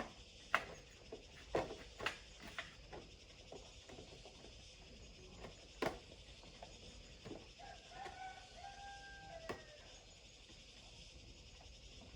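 Scattered sharp clicks and knocks, then a pitched animal call held for about a second and a half near the end, stepping slightly and dropping at its close.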